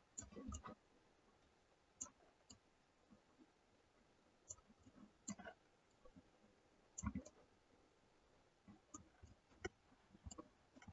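Faint, irregular clicks and taps of a computer mouse and keyboard, coming in small clusters every second or two.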